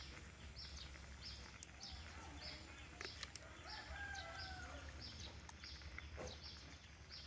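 A rooster crows faintly about four seconds in, over a high chirping that repeats about twice a second, with a few light clicks.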